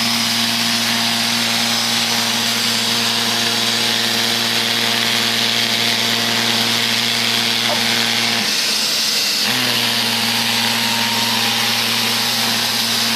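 Neato XV-21 robot vacuum running: a steady motor hum with a whine over the hiss of its suction fan. About two-thirds of the way through, the low hum drops out for about a second, then comes back.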